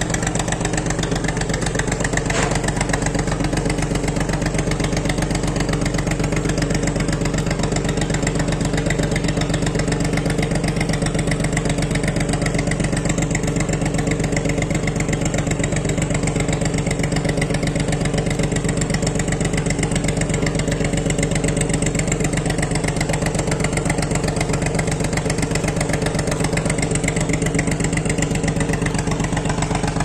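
Boat engine idling steadily, a fast even chug that does not change.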